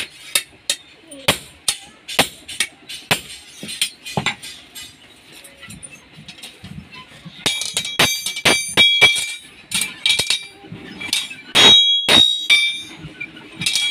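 Hand hammer striking a steel talwar sword blade on an anvil, sharp blows at a steady pace of about two a second. From about halfway on the blows make the blade ring with a high, clear metallic tone.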